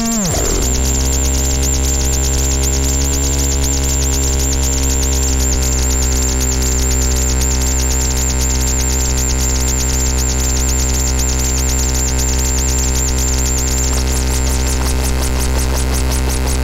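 Noise Rumble noise synthesizers through a Korg Kaoss Pad KP3, playing a loud electronic noise drone. Just after the start a knob-swept pitch glide drops sharply. It settles into a steady, dense low drone of held tones with a fast buzzing flutter on top, and the upper buzz thickens near the end.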